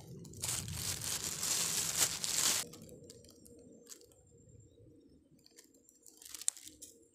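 A crackling rustle, like dry grass and leaves brushed close by, for about two seconds, then quieter, with a shorter rustle near the end.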